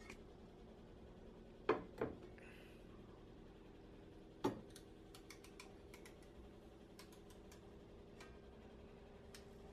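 An enamelled cast-iron braiser knocks three times against a tiled countertop as it is set down and shifted. Then come faint scattered clicks and scratches as a fingernail picks at a paper label on the side of the pan and peels it off.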